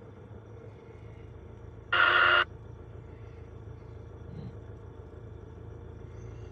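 Steady low hum of diesel engines running, with a loud, abrupt half-second burst from the two-way radio about two seconds in.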